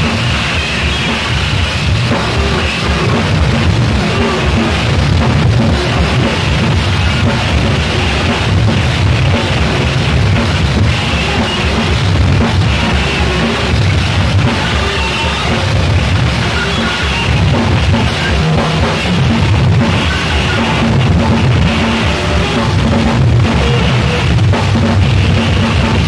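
Loud, dense rock music with a drum kit playing throughout.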